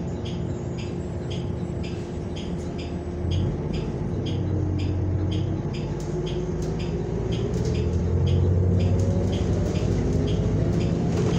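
Cabin sound of a New Flyer XN40 natural-gas city bus pulling away from a traffic light: the engine hum rises as it accelerates, growing louder about three seconds in and again near eight seconds. A light ticking repeats about twice a second throughout.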